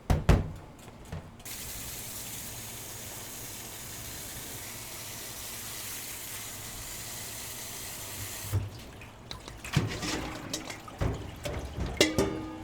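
A sharp knock, then a tap running steadily into a sink for about seven seconds before it shuts off suddenly. After it, a run of clattering and clinking, like dishes and utensils being handled.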